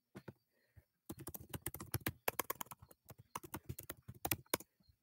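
Typing on a computer keyboard: a quick, irregular run of key clicks lasting about three and a half seconds, starting about a second in.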